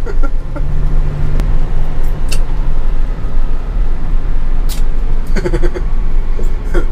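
Engine and road noise inside the cab of a moving U-Haul truck: a steady low rumble, with a few faint clicks and a short vocal sound about five seconds in.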